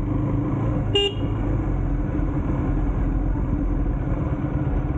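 Steady low rumble of a motorcycle on the move, with one short vehicle-horn toot about a second in.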